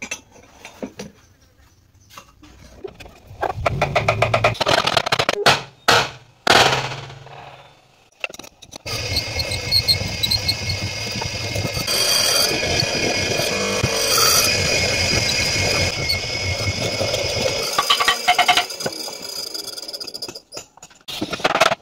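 Electric chisel mortiser running and cutting into a wooden plank, a steady motor hum with a high whine, for about eight seconds in the middle. Before and after it come shorter spells of knocking and wood being handled.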